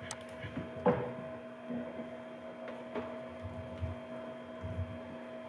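Steady electrical mains hum with a few scattered keyboard clicks; the loudest click comes about a second in.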